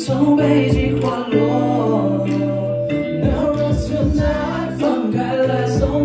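Live music: a man singing into a handheld microphone over backing music with held bass notes and a drum beat.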